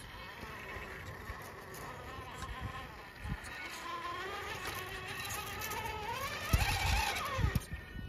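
RC rock crawler's electric motor and gearbox whining as it drives. The whine climbs in pitch over a few seconds, falls and stops near the end. A few low knocks come near the end.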